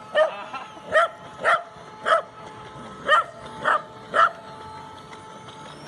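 Small dog barking in sharp, high yaps, about seven in the first four seconds, then falling silent, over a faint steady whine.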